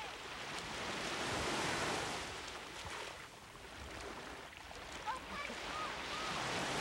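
Surf: small waves washing up on a sandy beach, the hiss of the water swelling, easing off and swelling again.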